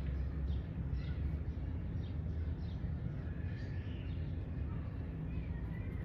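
Birds chirping, many short falling chirps scattered throughout, over a steady low rumble.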